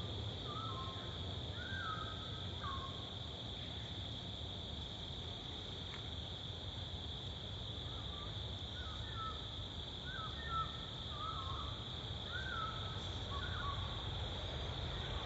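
Outdoor garden ambience: a steady high insect drone like crickets, with short chirping calls in two spells, over a low steady rumble.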